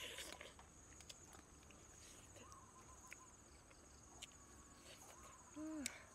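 Faint steady high-pitched chirring of insects, with a few small clicks and soft crunches of grilled fish being torn and chewed by hand. Near the end, a short hummed 'mm' from the person eating.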